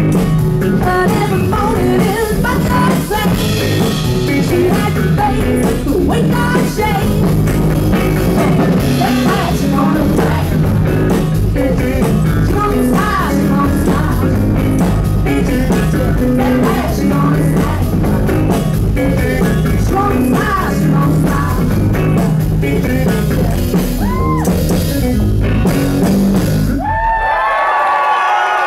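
Live rock and roll band playing: a female lead vocal over electric guitar, bass and drum kit. Near the end the band stops abruptly and the heavy low end drops away.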